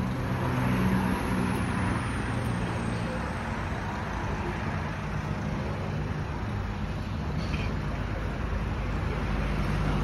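Steady road traffic noise, with the low, even hum of vehicle engines running.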